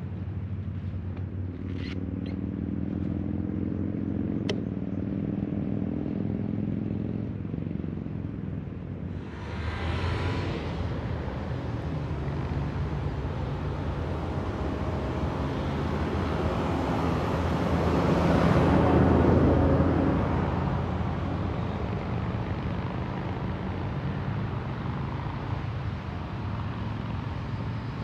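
Harley-Davidson V-twin engine running steadily while riding. A broad rush of wind and road noise swells to its loudest about two-thirds of the way through, then fades.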